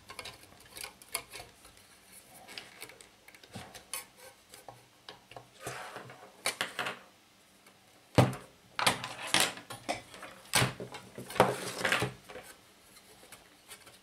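Clicks, knocks and rattles of a 1970s AEPI desk fan being handled and wrestled apart: its wire guard and housing knock and scrape against each other and the bench. The sounds are scattered at first, with a sharp knock about eight seconds in and a run of louder knocks and rattles after it.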